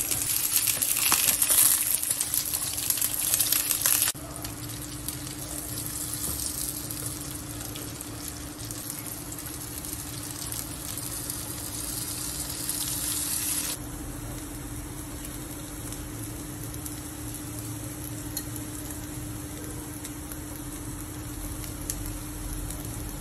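Chicken shami kebabs shallow-frying in oil in a flat pan, sizzling. The sizzle is loudest for the first four seconds, drops suddenly, then drops again about fourteen seconds in, with a faint steady hum underneath.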